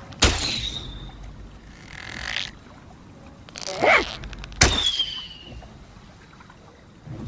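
Hunting bow being drawn with a creak and loosed, twice: each release is a sharp snap of the bowstring followed by a short high ringing that falls slightly in pitch.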